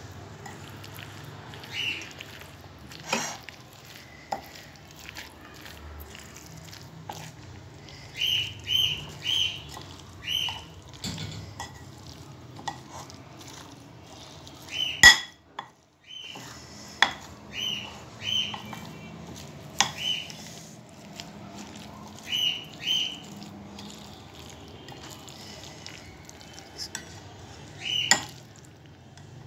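A spoon stirring thick gram-flour pakora batter in a glass bowl, with scattered clicks of the spoon against the glass. Short high bird chirps in twos and threes recur throughout, and a loud click comes about halfway, followed by a brief dropout.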